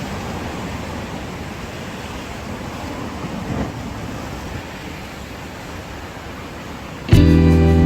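Sea surf washing steadily against the shore, with some wind on the microphone. About seven seconds in, louder background music with strummed guitar cuts in.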